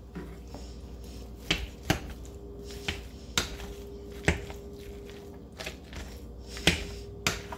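Kitchen utensil knocking against a pot of cooked potatoes, about eight sharp knocks at irregular spacing, while the potatoes and roasted garlic are worked in for mashing. A steady faint hum runs underneath.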